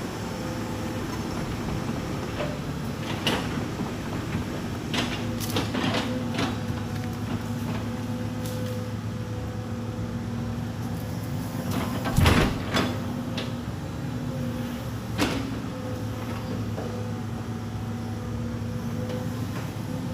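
Excavator's diesel engine running steadily, with scattered knocks and clunks as logs are moved and stacked, the loudest about twelve seconds in.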